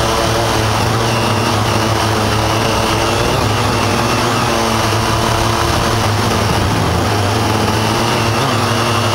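Syma X8 quadcopter's motors and propellers heard from its own onboard camera: a steady loud buzzing whine in flight, its pitch wavering slightly as the throttle shifts.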